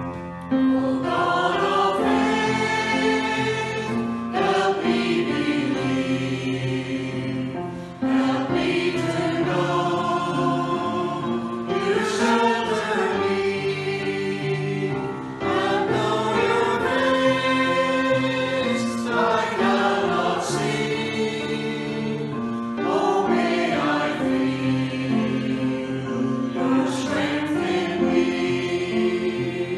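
Church choir singing a hymn, in four sung phrases of about seven seconds each.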